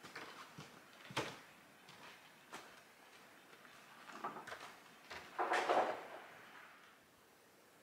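Distant wooden knocks and clatter of 2x4 lumber boards being carried and set down: a few separate knocks, then a longer, louder clatter about five and a half seconds in.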